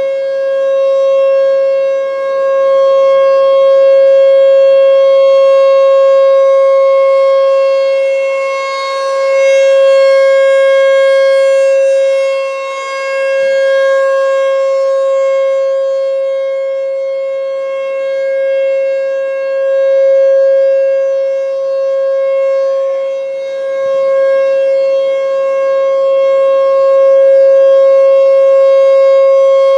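American Signal T-128 rotating outdoor warning siren sounding a steady single-pitch alert tone during a test. The tone holds its pitch but swells and fades about every five to six seconds as the rotating horn sweeps past.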